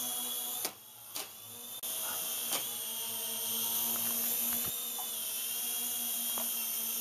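Small electric motors and propellers of a toy YD-718 RC helicopter whining steadily in flight. The whine drops out for about a second near the start, then resumes with a few light clicks.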